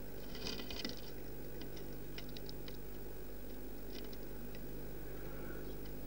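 Blue tit pecking and scrabbling among sunflower seeds and mealworms on the floor of a wooden bird-box feeder: sharp taps and clicks, a quick flurry about half a second in, then single taps every second or so.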